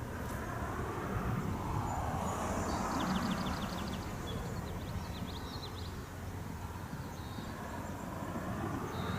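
Federal Signal 3T22 rotating outdoor warning siren winding down: a low, whooshing drone with no clear pitch that swells and fades as the rotating horn turns toward and away.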